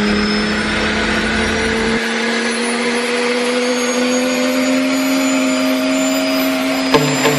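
Gazelle helicopter's turboshaft engine and rotors running, heard from inside the cockpit: a steady whine over a dense hum, rising slowly in pitch as the helicopter runs up for take-off. Music comes in near the end.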